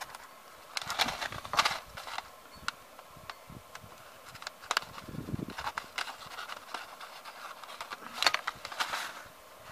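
Small paper envelopes being unfolded and handled, crinkling and rustling in irregular bursts with light scrapes and ticks.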